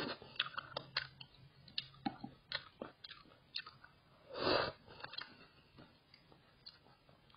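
Mouth sounds of a person chewing home-cooked noodles at close range: many small, wet clicks scattered throughout, with one louder, breathy burst about four and a half seconds in.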